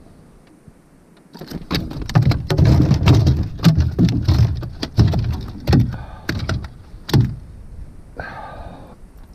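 A bowfin flopping and thrashing on a boat floor: a run of loud thumps and slaps that starts about a second and a half in and stops about seven seconds in.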